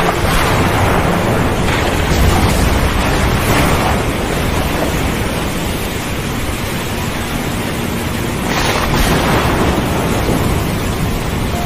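Stormy sea: wind and breaking waves in a dense, steady wash with a deep rumble underneath, swelling now and then.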